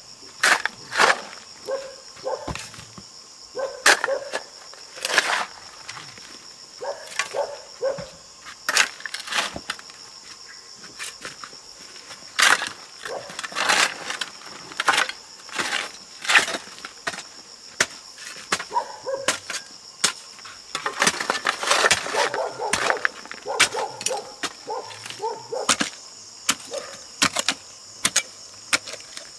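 Irregular sharp knocks, taps and short rustling scrapes of hand work, coming in uneven clusters, over a steady high-pitched drone.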